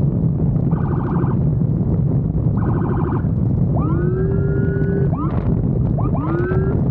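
Police motorcycle's electronic siren: two short buzzing horn-like blasts, then from about halfway a rising wail that holds, followed by quick rising whoops. Under it is the steady rumble of the motorcycle's engine and the wind.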